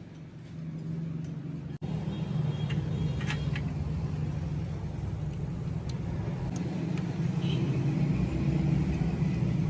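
Steady low motor rumble that grows gradually louder, with a few faint clicks and clinks on top. There is a brief cut about two seconds in.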